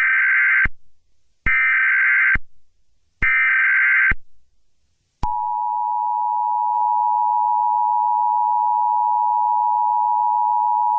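Emergency Alert System header: three short bursts of warbling data tones about a second apart (the SAME header), then, about five seconds in, the steady two-tone EAS attention signal starts and holds, marking the start of an emergency alert.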